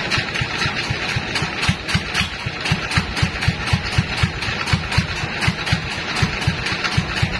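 Engine powering a band sawmill, running with a steady chugging of about four to five beats a second under a constant hiss.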